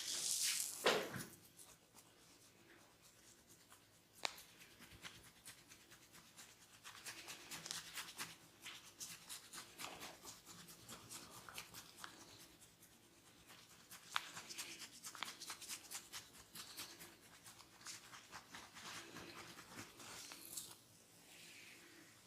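Close-up crackling, scratching and rubbing as a barber's fingers work through hair and over the scalp during a head massage. Many small crackles come in bouts, with a louder rustle in the first second.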